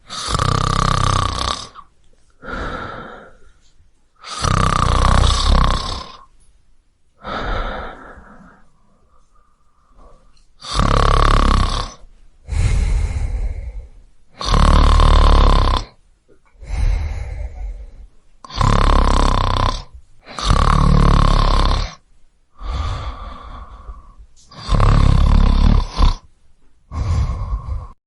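A man snoring loudly, one snore roughly every two seconds, about a dozen in all, some weaker than others.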